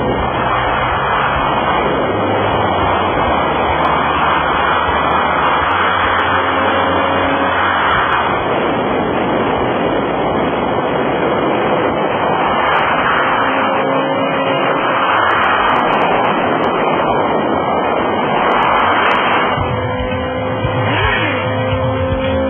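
Sportbike engines and wind rushing over the microphone at highway speed, a steady noise that swells and eases every few seconds.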